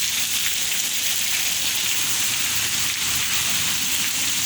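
Heavy rain falling steadily, an even hiss of many drops.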